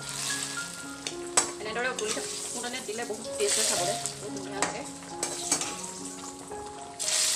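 Dal sizzling in hot oil tempering, in several separate hissing bursts as ladlefuls are scooped through the hot kadai and poured back into the pot, with light clinks of the metal ladle. Soft background music with mallet-like notes runs underneath.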